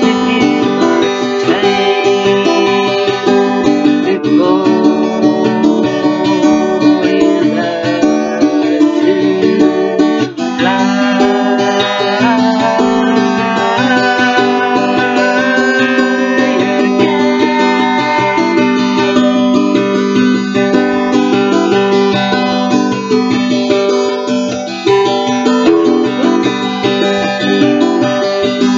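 An acoustic guitar strummed in steady chords, with a woman singing a slow song over it in stretches.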